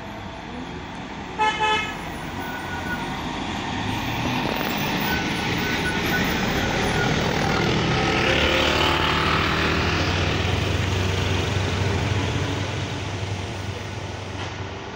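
A short horn toot about a second and a half in, then a medium tour bus coming downhill and passing close. Its engine and tyre noise grows louder, is loudest a little past halfway, then fades, with motorbikes passing close at the same time.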